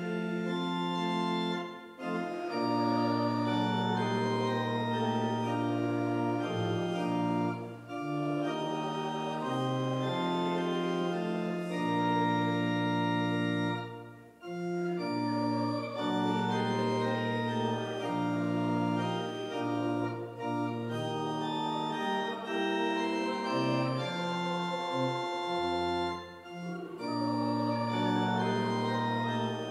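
Church organ playing a hymn in full, sustained chords, breaking briefly between phrases about every six seconds.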